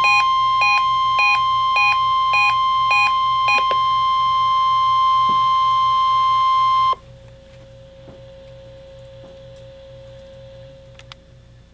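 National Weather Service weather radio warning alarm tone, the 1050 Hz test tone: one loud, steady high tone that cuts off suddenly about seven seconds in. For the first few seconds an alert beeps over it, just under two beeps a second. After the tone ends only a faint hum and hiss remain.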